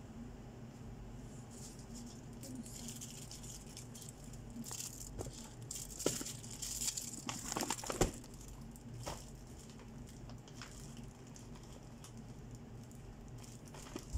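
Plastic bags and packaged goods crinkling and rustling as they are handled and packed into a cardboard box, with a few scattered knocks, the sharpest about six and eight seconds in, over a steady low hum.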